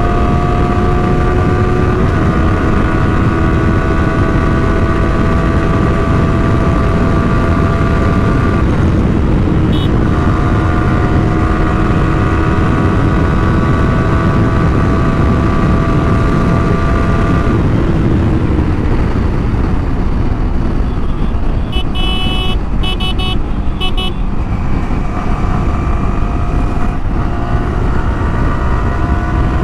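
Yamaha R15 sport bike's single-cylinder engine running at a steady high speed under heavy wind rush, with a short break about nine seconds in. After about eighteen seconds the engine note drops away as the bike slows. A vehicle horn sounds in a few short blasts about twenty-two seconds in, and the engine picks up again near the end.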